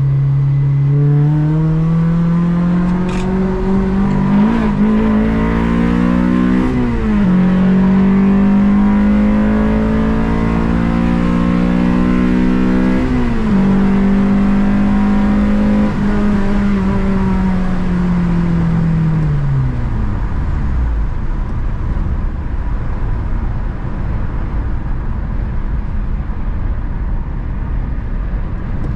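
Honda Civic Si engine pulling through the gears: its note climbs, dips and climbs again at shifts about four and a half, seven and thirteen seconds in, holds steady for a few seconds, then falls away as the car slows, leaving a low engine rumble and road noise.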